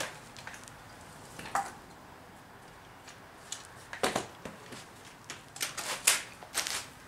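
Scattered sharp metallic clinks and knocks of hand tools being handled, with a quick cluster of them near the end.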